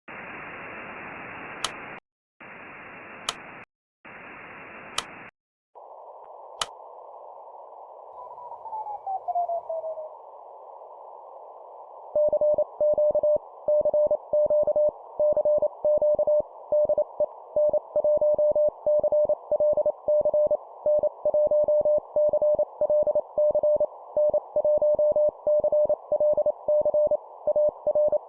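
Morse code at about 25 words per minute: a single steady tone keyed rapidly on and off over shortwave receiver hiss, typical of an amateur station calling CQ. It opens with three blocks of wider static and clicks, then narrower hiss with a tone gliding down in pitch as a signal is tuned in, before the keying starts a little under halfway through.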